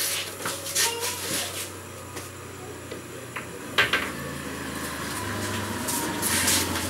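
Pool hall room sound: scattered low voices of onlookers in the first second or so and a steady low hum, with one sharp click a little under four seconds in.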